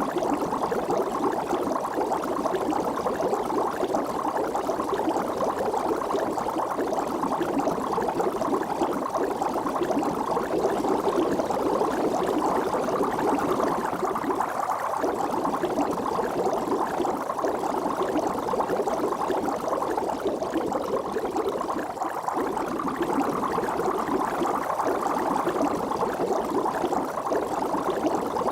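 Water bubbling steadily: a dense, continuous churn of many small bubbles.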